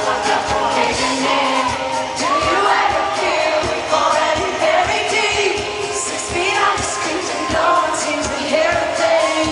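Live pop song played over an arena sound system and recorded from the audience: a woman singing over the band, with a steady drum beat.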